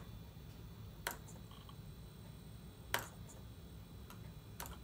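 Three sharp computer mouse clicks about two seconds apart, made while clicking through the Mac OS installer's dialog buttons, over a faint steady low hum.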